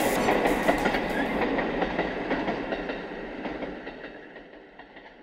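Abukuma Express electric train running along the line, its wheels clacking over the rail joints, the sound fading steadily away as it recedes.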